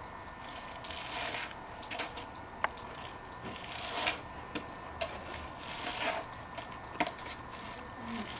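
Snow shovel scraping through snow on pavement in repeated strokes, a swish every one to two seconds, with a couple of sharp clicks between them.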